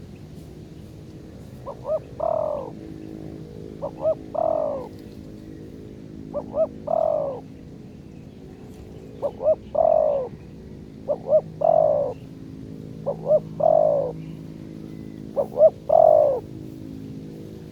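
Spotted dove cooing: seven repeated phrases, each two short notes followed by a longer, falling coo, roughly every two seconds.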